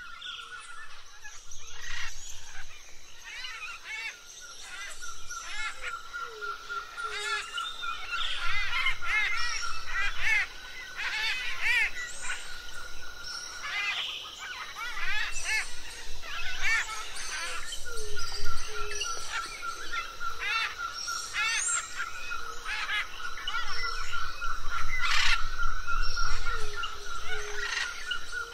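Recorded Amazonian birdsong: many overlapping chirps and whistled calls over a steady, fast-pulsing trill, which drops out for a few seconds around the middle.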